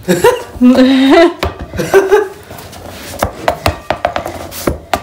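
English bulldog vocalizing in short pitched moans, one held on a flat note that steps up in pitch, over scattered sharp knocks and taps from play on a hard floor.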